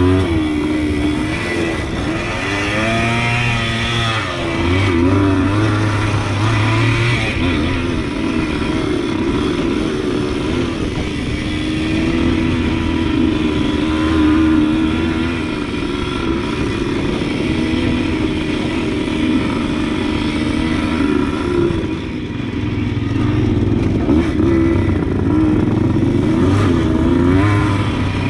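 Suzuki TS100 dirt bike's two-stroke single-cylinder engine running while being ridden, its pitch rising and falling with the throttle.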